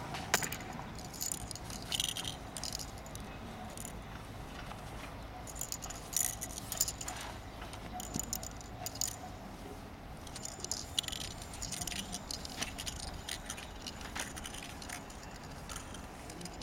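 Movement sounds of a tasselled spear being swung and twirled through a form: scattered light rattles and swishes that come in clusters, over a faint steady low hum.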